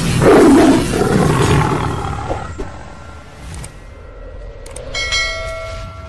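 Sound effects of a channel intro animation: a loud rush of noise that fades over about three seconds, then, about five seconds in, a click followed by a ringing bell chime.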